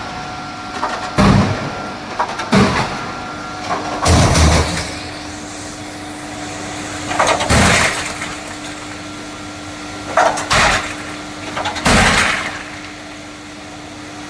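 Cube ice machine running with a steady mechanical hum and a few constant tones. Six loud, noisy bursts of about half a second each cut through it at irregular gaps of one and a half to three seconds.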